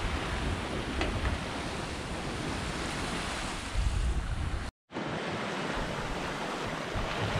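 Bow wave and water rushing and breaking along a sailing yacht's hull as she makes about 7.5 knots in flat seas, a steady wash, cut off by a brief drop to silence about two thirds of the way through.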